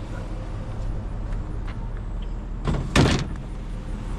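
Steady low rumble of an idling vehicle, with one loud bang about three seconds in.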